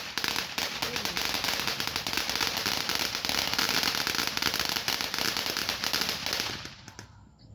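Consumer firework going off in a dense run of rapid crackling pops over a steady hiss, dying out about seven seconds in with a last couple of pops.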